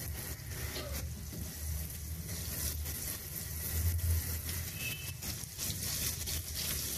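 Butter and oil sizzling in a frying pan with whole dried red chillies: a tadka (tempering) frying, a steady sizzle with small crackles over a low hum.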